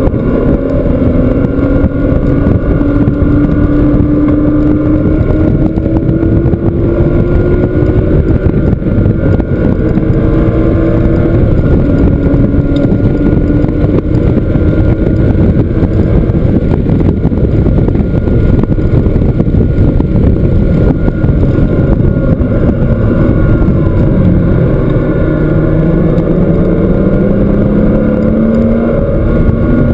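Porsche flat-six engine under hard acceleration on a racetrack, its pitch climbing through each gear and dropping back at each shift, over a dense rush of wind and road noise.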